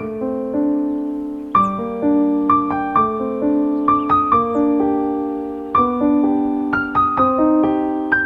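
Background music: a slow, gentle piano melody, notes struck one by one and left to ring out.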